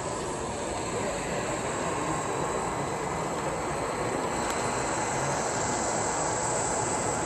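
Model train running on its layout track: a steady rolling noise with no breaks or sudden sounds.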